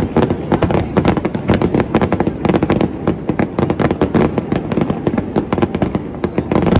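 Fireworks going off in a rapid barrage: many sharp bangs and crackles close together, several a second.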